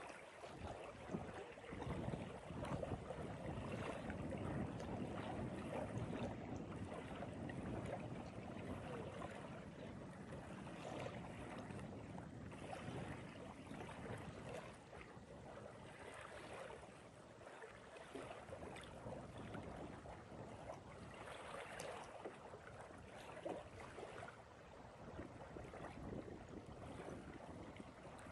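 Wind buffeting the microphone over the lapping of small waves, an uneven, gusty rushing with no steady engine tone.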